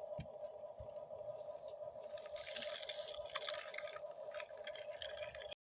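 An RC model excavator's motor whines steadily. From about two seconds in, scraping and trickling of dirt or gravel joins it. Both cut off abruptly just before the end.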